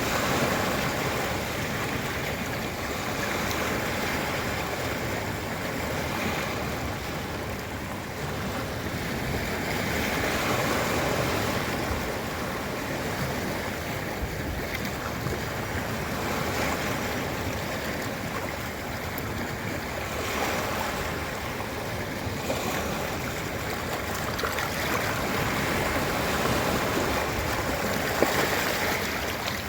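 Ocean surf on a beach: a continuous rushing wash of waves that swells and eases every few seconds.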